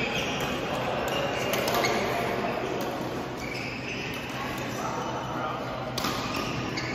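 Badminton rally: a few sharp racket hits on the shuttlecock and sneakers squeaking on the court floor in the first couple of seconds, then players' steps with background voices.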